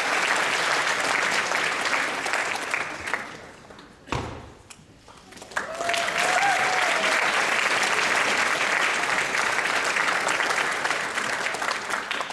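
A large audience applauding. The clapping dies away about three seconds in, a single thump sounds around four seconds, and the applause swells back to full strength about a second and a half later.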